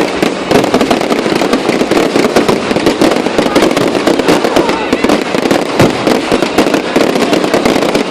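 Aerial fireworks going off in a dense, unbroken rapid crackle of many small bangs a second.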